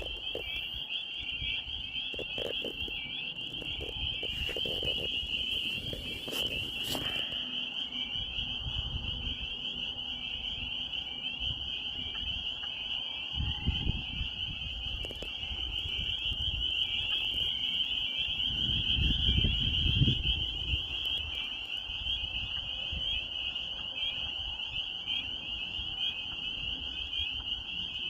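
Dense chorus of spring peepers, a steady mass of high peeping calls from many frogs at once. A low rumble swells and fades twice under it, around the middle and again about two-thirds through.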